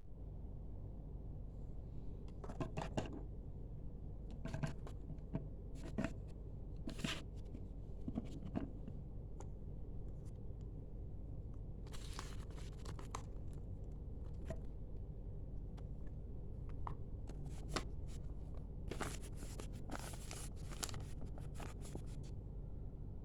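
Packaging being handled during an unboxing: intermittent rustling, tearing and scraping of cardboard and plastic, in short bursts scattered through the stretch, over a steady low background hum.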